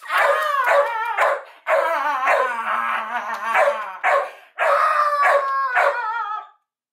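A large dog barking in long, pitched calls that rise and fall, in three or four runs broken by short pauses, directed at a man who is play-fighting with its owner.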